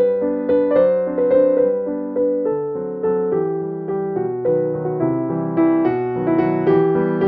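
Background piano music, single notes and chords struck at a steady, unhurried pace.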